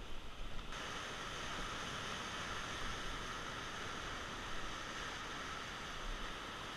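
Steady rush of ocean surf breaking and churning among shoreline rocks. The sound grows fuller and brighter just under a second in.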